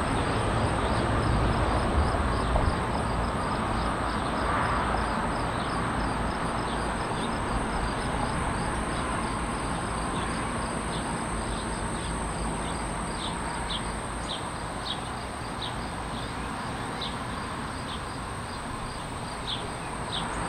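Crickets trilling and chirping steadily over wind buffeting the microphone. The wind noise is strongest at first and eases off through the stretch.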